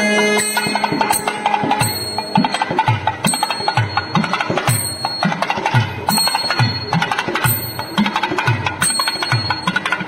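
Thavil drum beating a steady rhythm of about two strokes a second, with small metal hand cymbals clashing over it, as the percussion of a nagaswara ensemble.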